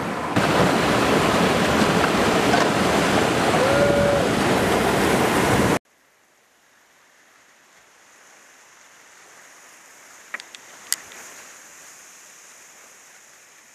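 Steady roar of river whitewater, cutting off abruptly about six seconds in. What follows is a faint, muffled hiss of rushing water with two or three sharp clicks, as heard from a helmet camera riding a kayak through rapids.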